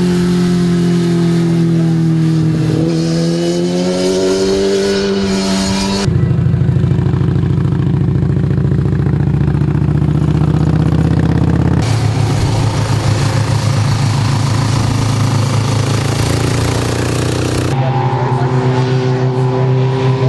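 Motorcycle engines riding past in four short clips that cut abruptly about every six seconds. The engine notes rise and fall with the throttle. In the second clip a Victory Vision's V-twin runs steady and low, the loudest stretch, and near the end two sport bikes come up through a bend.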